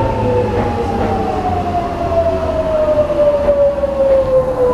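Sotetsu electric train braking into the station: its motor whine falls steadily in pitch as it slows to a stop, over a low running rumble.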